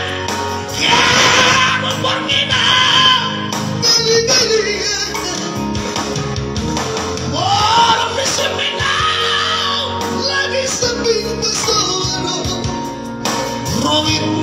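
Two male voices singing live through microphones over backing music, holding long drawn-out notes in turn as a vocal contest of sustained notes, with one note sliding upward about halfway through.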